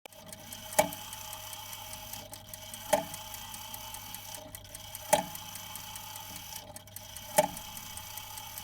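Clock mechanism ticking, with a loud click about every two seconds, four in all, over a steady low hum and hiss.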